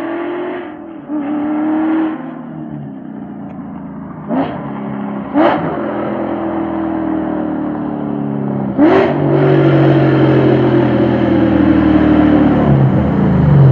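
5.0 V8 exhaust, running through an X-pipe and H-pipe into a Corsa resonator, revved in a few sharp throttle blips. About nine seconds in it goes to a louder, steady pull whose pitch slowly falls toward the end.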